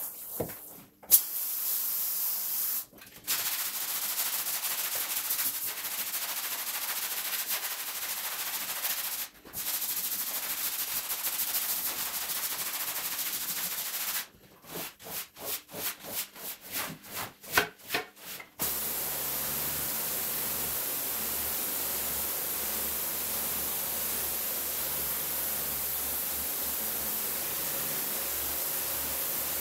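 Sped-up scrubbing of a wet carpet with a long-handled brush: a scratchy hiss broken by a few short pauses, then a run of quick strokes, about three a second. Some 19 seconds in, a pressure washer takes over with a steady spray hiss over a low pump hum.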